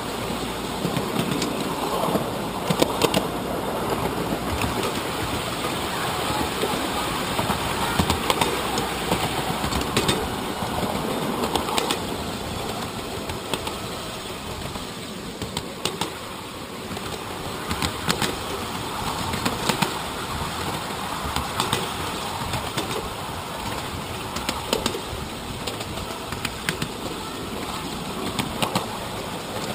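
A 7¼-inch gauge miniature train rolling along its track: a steady rumble and rattle, with clicks and knocks every second or two as the wheels cross rail joints.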